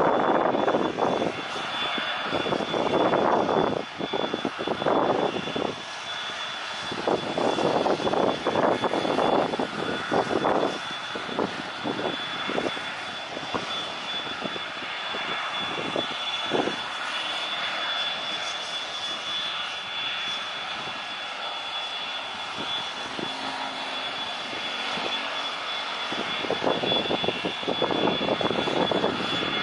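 Jet engines of an old twin-engine airliner running at low power on the runway before take-off: a steady high-pitched whine over a rushing roar that swells and sinks in level.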